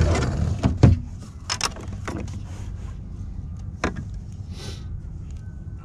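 Knocks and clatter of gear and the fish being handled aboard a plastic fishing kayak, loudest in the first second, over a steady low rumble of wind and water.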